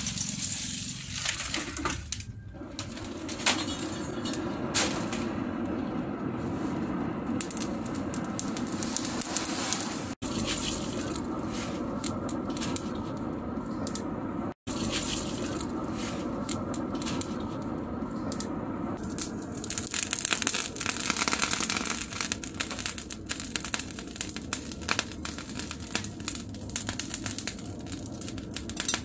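Lumps of charcoal pouring from a plastic basket onto a forge fire, a long run of light clinks and rattles as the pieces tumble and settle. The coals are then shifted with metal tongs. A steady low hum runs under the first part and fades out about two-thirds of the way in.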